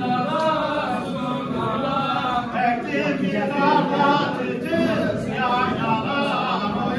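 A group of men singing a Turkish folk song (türkü) together without instruments.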